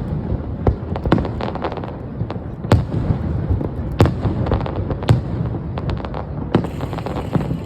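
Aerial fireworks going off: a run of sharp bangs about a second apart, with clusters of crackling between them over a constant low rumble.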